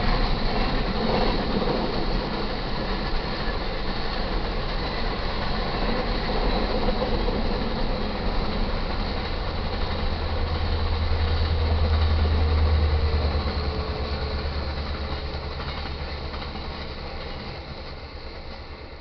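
Fast-moving BNSF coal train passing: a steady rumble and wheel clatter from the cars. A locomotive's low engine drone swells to its loudest about twelve seconds in, then the whole sound fades steadily as the train moves away.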